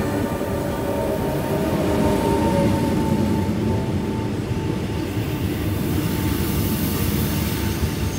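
Renfe Cercanías Civia electric commuter train running past alongside the platform: a steady, close rolling rumble of wheels on rail, with a faint thin whine in the first few seconds.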